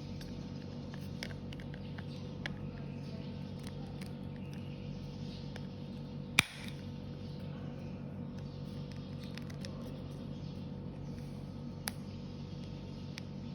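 Toys or plastic packaging being handled: scattered small clicks and taps over a steady low hum, with one sharp click about six seconds in.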